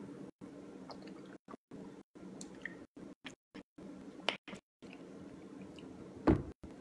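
A man drinking from a plastic water bottle: faint swallowing and mouth sounds with scattered small clicks, the loudest near the end, over a low steady room hum. The audio repeatedly cuts to dead silence for moments at a time as the live-stream signal drops out.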